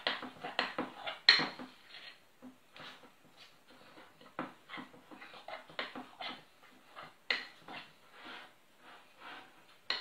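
Thick cookie batter being stirred by hand in a glass mixing bowl: a utensil scrapes and knocks against the bowl in uneven strokes, about two a second, stronger in the first couple of seconds.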